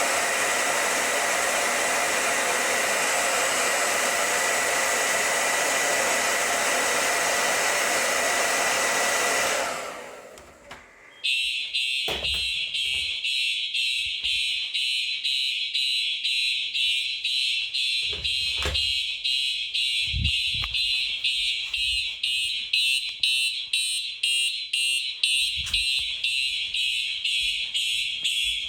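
A hot-air blower runs steadily for about ten seconds, heating a Siemens DT11 heat detector, then shuts off. About a second later the detector trips the fire alarm and Simplex electronic horns start sounding a rapid, high-pitched pulsing tone.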